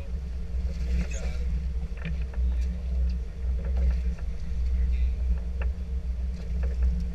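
Sport-fishing boat's engine idling: a low steady rumble with a faint constant hum above it, and scattered small knocks and clicks.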